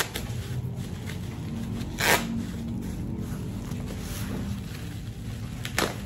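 Bubble wrap rustling and crinkling as it is pulled and peeled off a cardboard box, with a loud crackle about two seconds in and another near the end.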